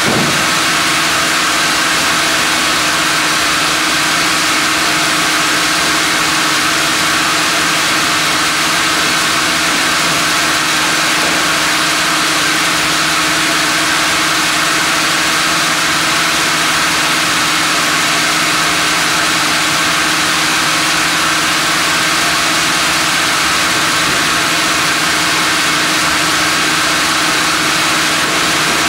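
Sawmill machinery running steadily: a constant, unchanging mechanical drone with a hum and a strong hiss.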